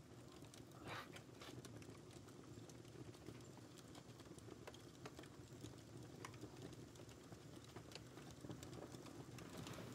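Near silence: faint room tone with a low hum and a few faint scattered clicks.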